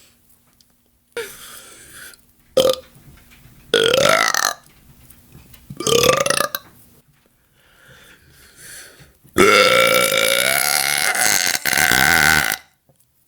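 A series of deliberate burps: several short ones, some with the pitch sliding upward, then one long loud burp of about three seconds near the end.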